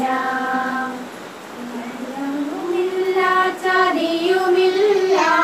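A small group of girls and women singing together without instruments, holding long notes. The singing dips briefly about a second in, then returns on a higher, rising line that is held to the end.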